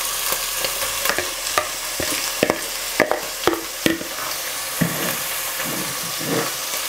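Omena (small Lake Victoria sardines) sizzling steadily as they fry in a metal pot. A metal spoon clinks and scrapes sharply several times as the fish are spread out evenly, then a few softer scrapes come near the end.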